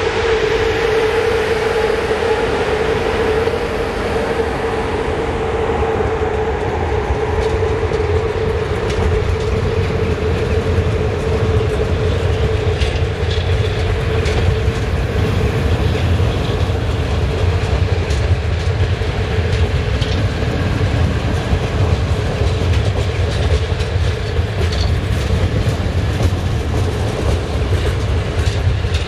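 A CFR electric locomotive and its double-deck passenger coaches rolling slowly past under a speed restriction. A steady hum from the locomotive fades over the first several seconds, leaving the low rumble of the coaches and clicks of their wheels over the rail joints.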